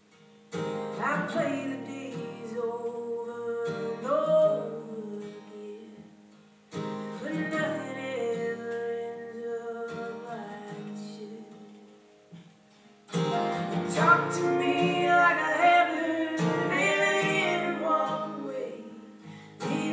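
Live acoustic folk song: voice sung over strummed and plucked acoustic guitar, in three phrases with short gaps between them. The third phrase, from about 13 seconds in, is louder, with two voices singing together in harmony.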